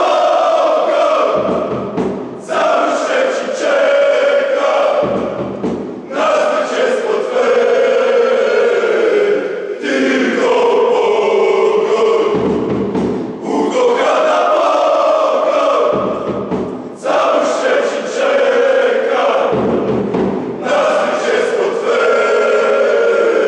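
A large crowd of football supporters singing a chant together in unison, in repeated phrases of a few seconds with short breaks between them.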